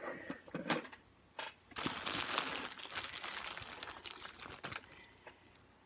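Plastic bags rustling and crinkling as they are rummaged through, starting about a second and a half in and fading out after about three seconds.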